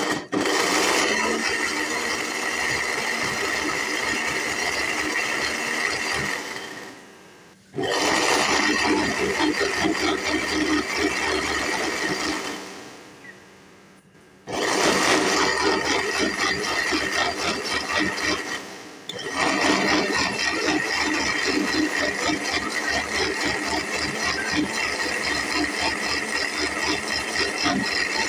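Electric mixer grinder running at full speed with a steady whine, chopping onion pieces into a paste. It is switched off and on again three times, winding down before each restart; the third stop is brief.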